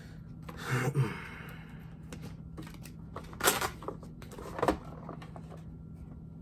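Plastic clicks and knocks as a desktop thermal label printer is handled and set down, with the sharpest knock about three and a half seconds in and another about a second later, over a steady low hum.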